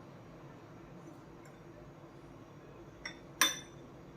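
A utensil clinks against a bowl, a faint tap about three seconds in and then a sharper ringing clink, against low kitchen room tone.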